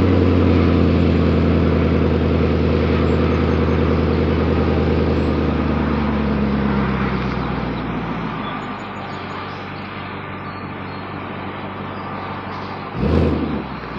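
2010 Volvo S80's 4.4-litre Yamaha V8 through a Becker aftermarket exhaust, running with a steady deep note that fades away about eight seconds in, then one short rev blip near the end.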